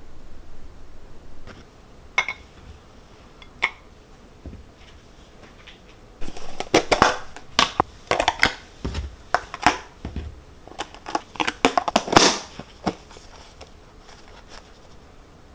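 Cookies being dropped into a clear plastic food storage container and its plastic lid put on: a couple of single clicks, then a dense run of plastic clatter and knocks starting about six seconds in, the loudest near the end.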